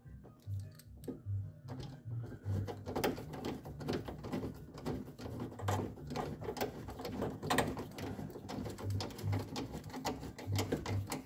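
Hand screwdriver turning a screw into the window motor mount inside a steel truck door: a run of irregular small clicks and metal scrapes as the screw is started.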